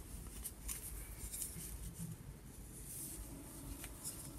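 Faint rubbing and scraping of 10 mm wooden knitting needles through chunky wool yarn as stitches are knitted, with a few light clicks of the needles.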